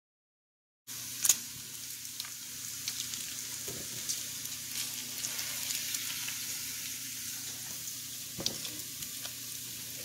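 Bacon sizzling and crackling in hot fat in a frying pan, starting suddenly about a second in, with a few sharp pops and clicks as the strips are turned with tongs.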